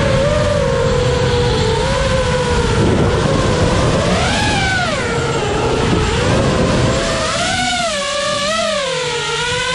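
FPV quadcopter's brushless motors and propellers whining, the pitch rising and falling repeatedly as the throttle changes, heard from the onboard camera. There is a rough rush of wind under the whine that eases about three-quarters of the way through.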